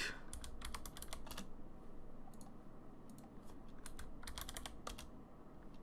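Keystrokes on a computer keyboard in three quick bursts, numbers being typed into a light's power setting.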